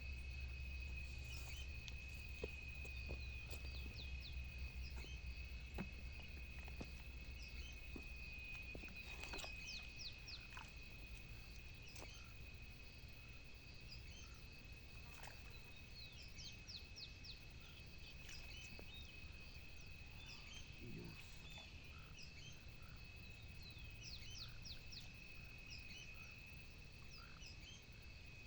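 Natural ambience: a steady high-pitched drone, likely insects or frogs, holds throughout, and birds chirp over it in quick runs of short calls several times. A low rumble fades out over the first third.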